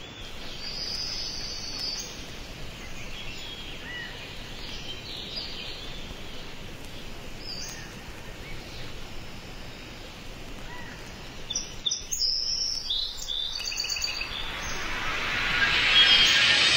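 Ambient intro soundscape: bird chirps scattered over a steady noise bed, with a cluster of quick chirps a little past the middle and a swell of noise rising near the end.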